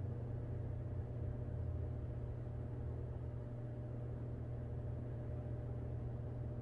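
Steady low hum of room tone with a faint hiss, unchanging throughout.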